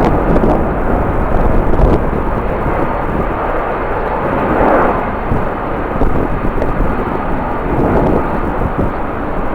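Airliner engines rumbling steadily, with strong wind gusting on the microphone.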